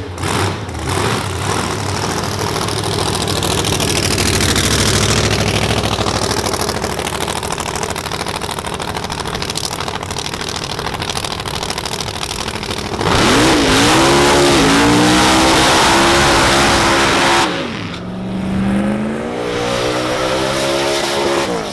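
Drag-racing engines at full throttle on a race pass, a continuous loud roar with rising engine pitch. It is loudest from about 13 seconds in for some four seconds, and a second engine climbs in pitch just after.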